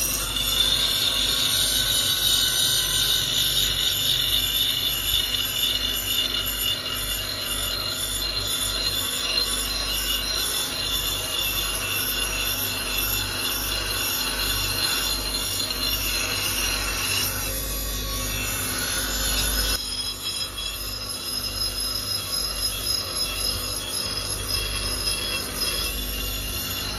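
Steel blade blank pressed against a motor-driven grinding wheel: a continuous high-pitched grinding squeal of metal on abrasive. The tone changes abruptly about twenty seconds in.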